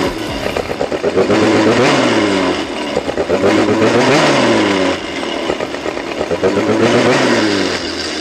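MBK Booster's two-stroke engine with a 70 cc Top Perf kit, being revved up and back down three times while it is run in and warmed.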